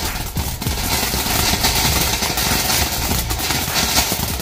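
LF Fireworks Mount Makiling ground fountain firework burning, spraying sparks with a steady hiss and dense crackling.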